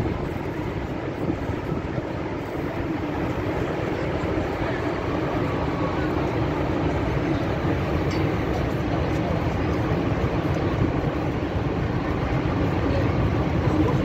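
Steady rush of Horseshoe Falls at Niagara: the continuous noise of a huge volume of falling water, even and unbroken.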